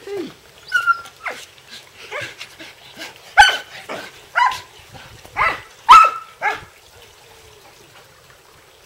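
Black Belgian Shepherd (Groenendael) barking in play during a game of fetch: about seven sharp, loud barks in quick succession, stopping about two-thirds of the way through.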